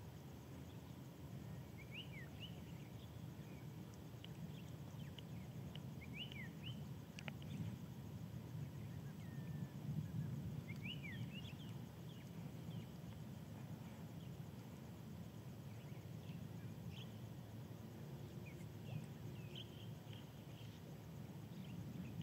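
Faint outdoor ambience: a low steady rumble with scattered short, high bird chirps and quick whistled glides. The calls come in small clusters about two, six, ten to eleven and nineteen to twenty seconds in.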